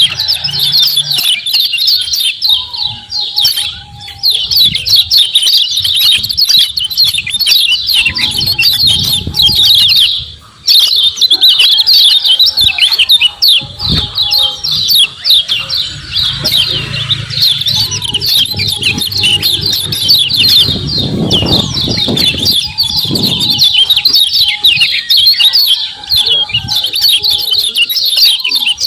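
Kecial kuning (a white-eye, Zosterops) chattering its fast 'ciak ciak' calls in a dense, continuous run of high chirps, with a brief break about ten seconds in.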